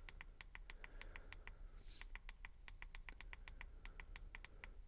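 Rapid faint ticks, about five a second, from the scroll button of an OBDPROG MT601 handheld odometer-correction tool pressed over and over to step down a menu list.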